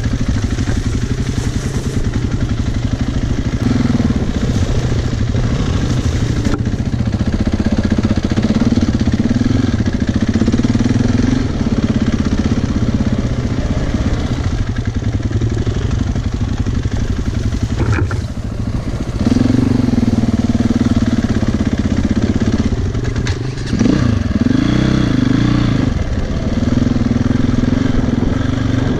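Single-cylinder four-stroke enduro motorcycle engine running under way, the pitch holding steady and then rising and falling as the throttle is opened and closed. It drops off briefly about 18 seconds in and again near 24 seconds, followed by quick blips up and down.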